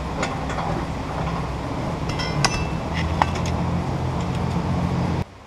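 Light metallic clinks and ticks as a metal rule is handled against a steel sawmill track rail, a few scattered taps, over a steady low rumble that stops abruptly near the end.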